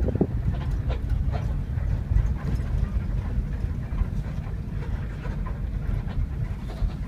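Steady low rumble of a moving bus's engine and road noise, heard inside the passenger cabin, with faint scattered rattles.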